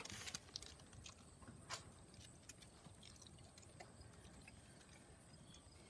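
Near silence with a few faint, scattered clicks and taps from a Great Pyrenees puppy feeding at a metal Pet Lodge Chow Hound self-feeder.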